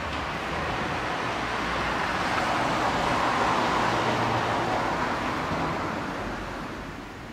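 A vehicle passing by: road and engine noise that swells to a peak about halfway, then fades away.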